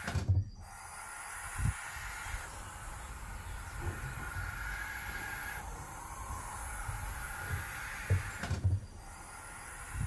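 Barn owl owlets making long, drawn-out hissing calls in repeated spells as they are handled in the nest box, with a few dull knocks against the wooden box.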